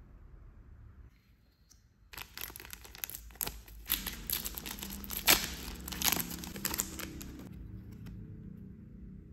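A sealed plastic trading-card sachet being torn open by hand: about five seconds of crinkling and tearing starting two seconds in, with the sharpest rip near the middle.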